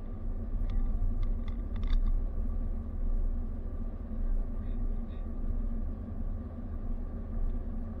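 Car driving at road speed, heard from inside the cabin: a steady low rumble of road and engine noise with a faint steady hum, and a few short ticks about one to two seconds in.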